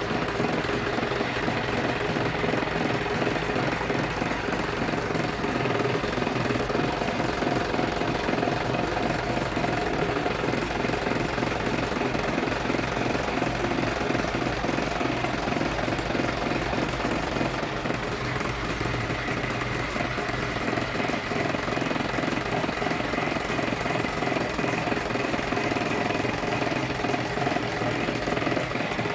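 Homemade electric scroll saw running and cutting through a thin wooden sheet, its blade moving rapidly up and down with a steady, fast rattle.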